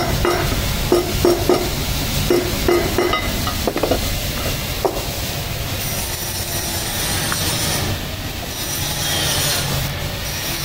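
A powered buffing wheel rubbing against stainless steel, a steady loud friction noise with a high squealing whine. It settles into an even hiss about halfway through.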